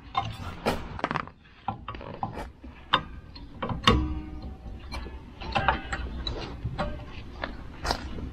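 Metal clicks, clanks and scrapes as the handbrake shoes and their return springs on a Volvo 940's rear hub are worked into place by hand. Irregular knocks, the sharpest about four seconds in.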